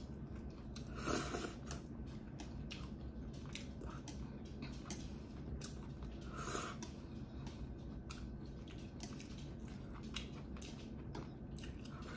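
Close-miked eating of black bean noodles: chewing and small mouth clicks throughout, with two louder noisy bursts, one about a second in and one a little past halfway.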